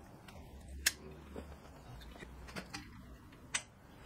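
Locking pliers being handled and adjusted on a steel workbench: a few sharp metallic clicks, the loudest about a second in and another near the end.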